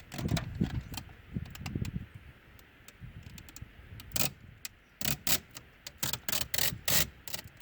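Irregular short clicks and light scrapes of hands working a vinyl decal onto a truck's body, coming thicker in the last few seconds.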